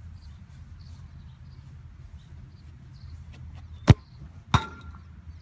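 A soccer ball kicked hard with a sharp thud, then about two-thirds of a second later a second impact with a short ringing tone, the ball striking the goal frame.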